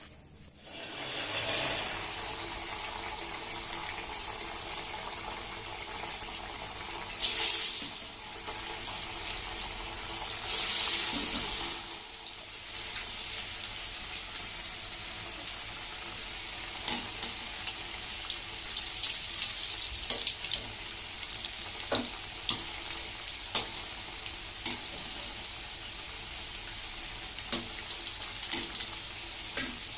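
Pea pakodas deep-frying in hot oil in a steel kadai: a steady sizzle with scattered crackles and pops, swelling louder twice, about a quarter and a third of the way through.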